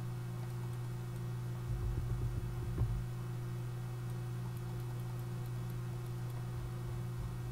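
Steady low hum of a computer picked up by the recording microphone, with a few soft knocks about two to three seconds in. Faint, quick mouse clicks follow in the second half as Pen-tool anchor points are placed.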